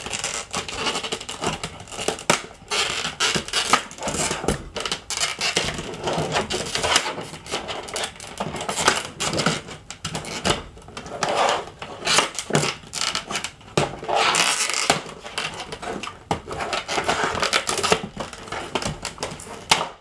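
Stiff plastic clamshell blister packaging being pried, bent and pulled open by hand, with many sharp clicks, crackles and crinkles of the plastic.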